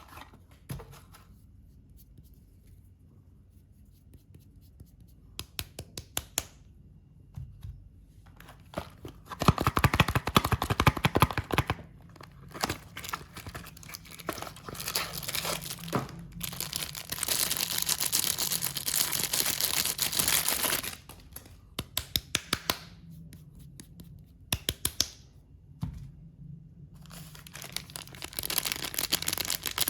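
Soap packaging being torn open and crinkled by hand: bursts of tearing and crackling wrapper noise with short quiet pauses between them, loudest in two longer stretches of steady crinkling.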